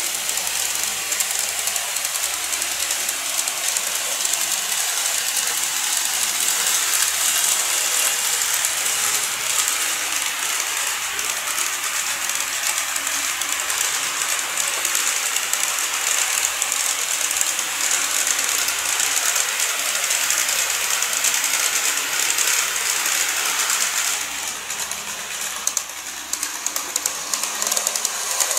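KATO 381 series model train running along the track: a steady rolling rattle of small wheels clicking over the rail joints. It drops in level about 24 seconds in, leaving a few sharper clicks.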